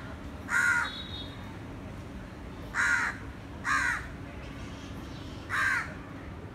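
A crow cawing, four single short caws spaced one to two seconds apart, over a steady low background noise.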